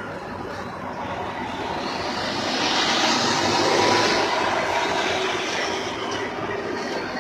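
Steady vehicle and engine noise that swells to its loudest about three to four seconds in, with a rising hiss, then eases off.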